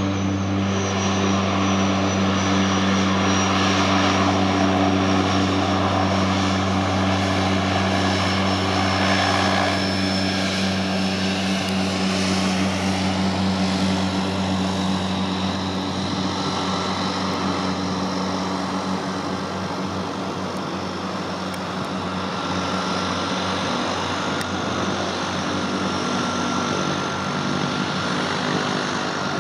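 Twin Pratt & Whitney PT6A turboprops and propellers of a de Havilland Canada DHC-6 Twin Otter floatplane droning steadily as it runs on the water after landing, with a faint high turbine whine slowly falling in pitch. The drone eases off gradually in the second half.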